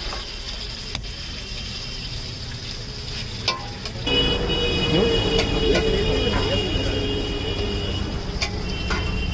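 Street food stall ambience: a steady hiss of pakodas frying in a kadai of oil, traffic noise, and a few sharp knocks of hands and utensils on the steel counter. About four seconds in it grows louder and a steady high-pitched tone sets in.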